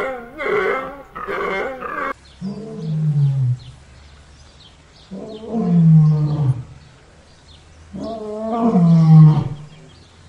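An animal calling: a run of short, quick calls, then three long calls about three seconds apart, each sliding down in pitch.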